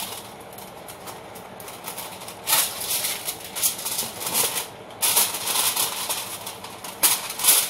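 Aluminum foil crinkling and rustling as it is pulled off the roll in its cardboard box, in two main stretches starting about two and a half and five seconds in, with a sharp crackle near the end.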